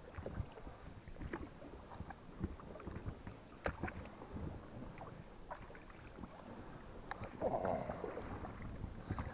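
Oars of an inflatable rowing boat pulling through the water, with scattered small knocks and a louder stretch of water noise about seven and a half seconds in.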